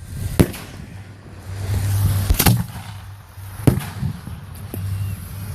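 Fireworks going off: a sharp bang under a second in, two in quick succession around two and a half seconds, another near four seconds and a few fainter pops after, with a low rumble between them.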